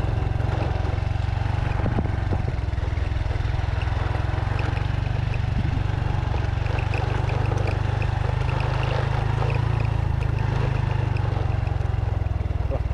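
Small motorcycle engine running steadily at low road speed, a low even drone.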